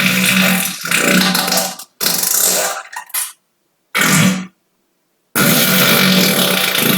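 A string of loud, pitched human farts cut back to back with dead silence between them: several in the first four and a half seconds, then a longer one starting a little after five seconds in. They are deliberate farts, made by drawing air in through the anus and pushing it back out.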